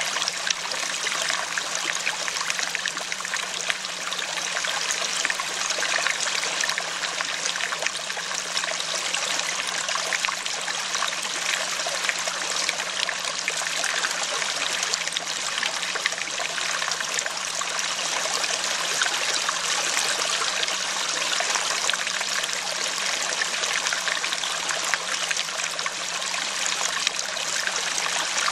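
Steady running water, a trickling stream, continuous and unchanging throughout.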